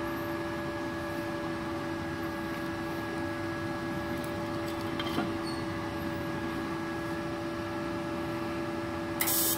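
MultiPro TIG 200A-SA IGBT inverter welder switched on and idling, set to 58 amps: a steady hum with a few constant tones. A brief hiss starts near the end.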